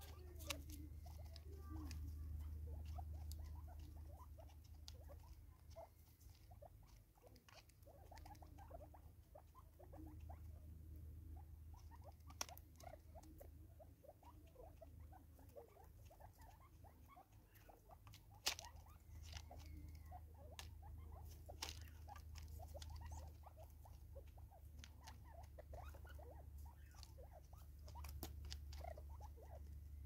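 Soft pecking, scratching and pattering of francolins feeding on seed, a dense run of small ticks with a few sharper taps, over a faint low hum.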